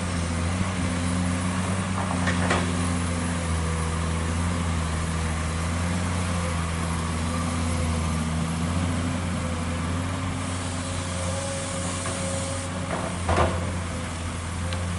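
Heavy diesel engine running steadily at a constant note, with two sharp metallic clanks, one about two seconds in and a louder one near the end.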